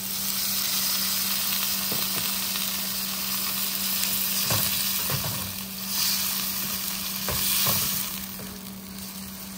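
Mangrove clam meat and galangal shoots sizzling in a pan with a little water just added, stirred with a few knocks and scrapes of the utensil against the pan.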